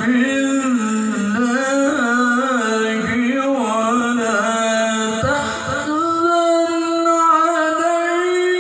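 A man reciting the Quran in melodic tilawah style, drawing out an ornamented, wavering phrase in the first half and then holding one long steady note.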